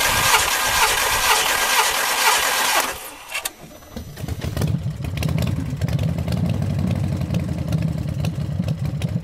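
Volkswagen Golf Mk4 2.0 L four-cylinder engine cranked on the starter, with a compression gauge screwed into a spark-plug hole, for about three seconds. After a short lull, a low steady rumble sets in and continues.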